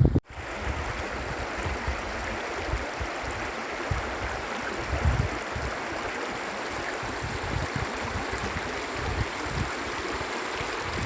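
Steady rush of flowing water, as of a stream, with irregular low wind gusts buffeting the microphone.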